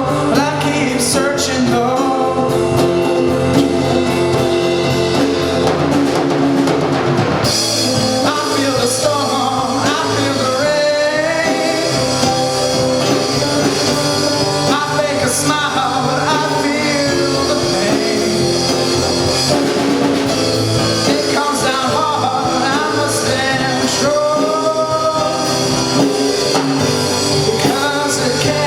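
A rock band with drums, bass, keyboard and guitar playing a slow song, with a melodic lead line bending up and down in pitch over it. About seven and a half seconds in the cymbals open up and the sound gets brighter.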